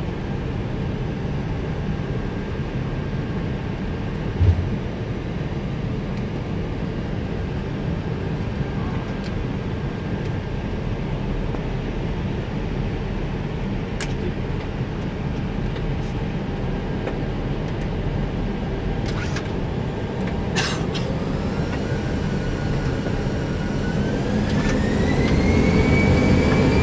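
Airbus A319 cockpit: a steady engine and air-conditioning hum with a few switch clicks and a brief thump, then, starting about three quarters of the way through, the engines spool up with a rising whine that grows louder as takeoff thrust is set.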